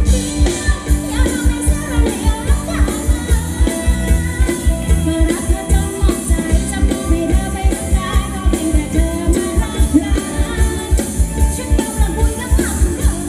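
Live band playing Thai ramwong dance music: a steady, quick beat of about three pulses a second with a singer's voice over it.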